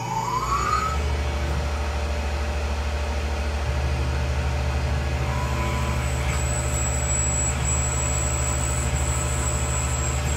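Tormach 1100 CNC mill spindle winding up with a rising whine, then running steadily as a drill bores into the bolt knob under flood coolant: a steady low machine hum with the hiss of coolant spray. A faint high whine joins about six seconds in.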